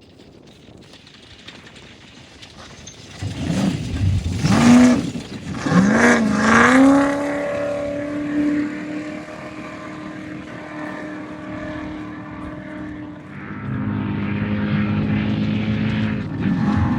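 Off-road race vehicle engine revving hard, its pitch climbing twice in quick succession as it accelerates, then holding a steady high-pitched note. About three seconds before the end a second engine comes in louder, running steadily.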